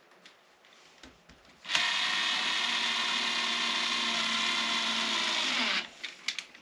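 Cordless drill driver running unloaded in high speed for about four seconds, then winding down in pitch as the trigger is released.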